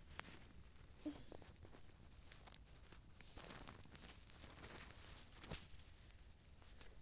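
Faint footsteps crunching in snow, uneven and irregular, with a few sharper crunches and clicks.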